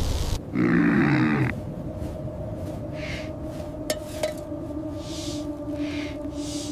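A short animal roar lasting about a second, starting half a second in, followed by a steady low drone with several soft, wind-like whooshes.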